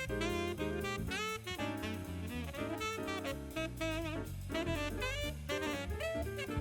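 Jazz background music: a saxophone melody with sliding notes over drums and bass.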